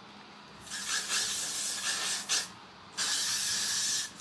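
Aerosol hairspray sprayed onto hair in two long hisses, the second starting about three seconds in.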